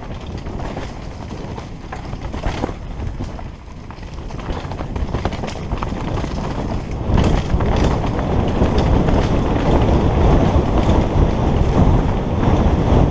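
Wind rushing over a helmet-mounted camera's microphone during a downhill mountain-bike run, with tyres on a dirt trail and scattered knocks and rattles from the bike. The rush gets louder about halfway through.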